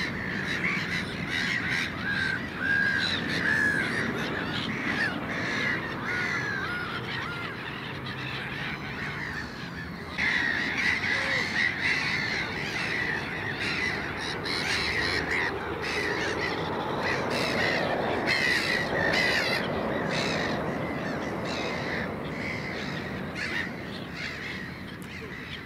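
A large flock of black-headed gulls calling non-stop, many harsh short calls overlapping, as they crowd over food thrown to them. The calling gets louder about ten seconds in.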